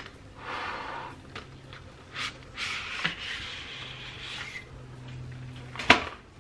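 Cardboard palette sleeve rubbing as it is slid off an eyeshadow palette, a soft scraping hiss in two stretches, followed by one sharp tap near the end.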